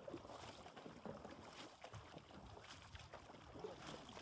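Faint lake water lapping and splashing against a wooden fishing canoe while a fishing net is handled, with small scattered knocks and drips.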